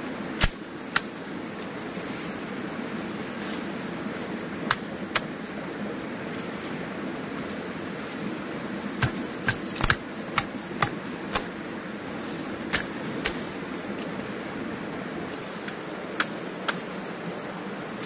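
Sharp strikes of a hand tool, often in pairs about half a second apart, with a quicker run of six strikes about nine seconds in, over a steady rushing noise.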